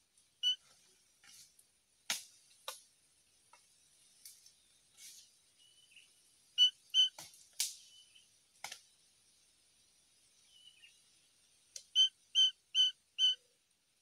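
A bird calling in short, clear notes, two near the middle and then four in quick succession near the end. Scattered sharp clicks and a faint steady high hiss run underneath.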